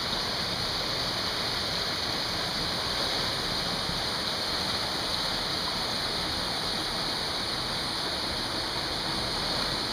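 Mountain stream rushing over small rocky cascades: a steady, even rush of water.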